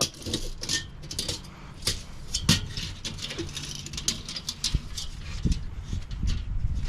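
Metal fridge parts clicking, knocking and rattling as a component is pulled apart by hand, with scattered sharp knocks throughout.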